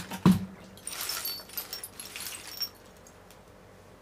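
Rusty steel bolts, nuts and scrap parts clinking and rattling against each other as hands rummage through a pile of them, with one sharp knock about a quarter-second in and scattered light metallic clinks over the next two seconds.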